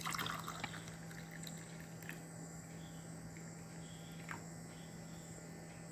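Faint background sound: a steady low hum under a steady high-pitched trill, with a few light clicks in the first half-second.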